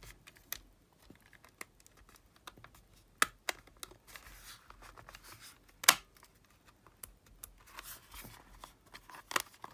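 Sony TCM-450 cassette recorder's case being handled and pressed together by hand: scraping and rubbing with a few sharp clicks as the parts seat, the loudest about six seconds in.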